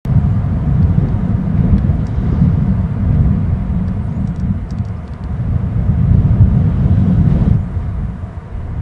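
Wind buffeting an outdoor nest-cam microphone: a loud, gusting low rumble that eases a little near the end.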